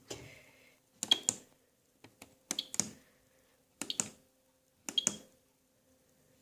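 Five short double clicks about a second apart from the control panel of a Miele W3623 washing machine as it is being set, over a faint steady hum.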